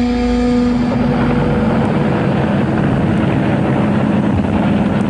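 Steady helicopter engine and rotor noise, with a sustained music chord fading out under it about a second in.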